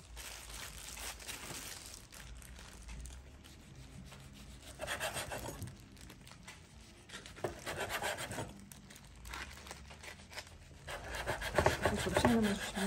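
Chef's knife sawing through rolls of kimbap (rice wrapped in dried seaweed) onto a wooden cutting board, in about three bursts of back-and-forth strokes, the last the loudest.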